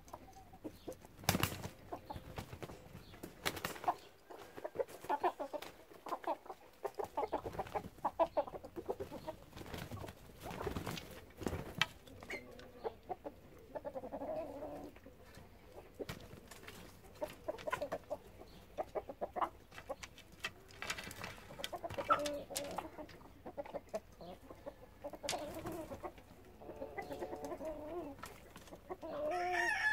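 Flock of chickens clucking on and off as they forage, with a few sharp knocks among the calls. A rooster starts to crow at the very end.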